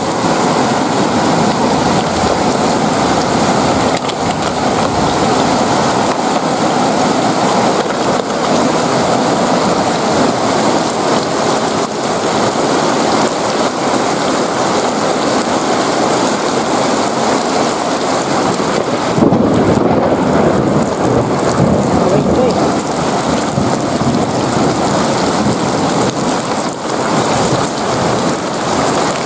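Heavy rain pouring onto wet paving and puddled ground, a loud steady hiss. About two-thirds of the way in the rush turns deeper for a few seconds.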